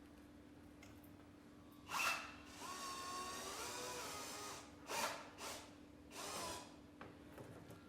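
Power drill driving screws into wood: one run of about two seconds, then three short bursts as the screws are snugged home.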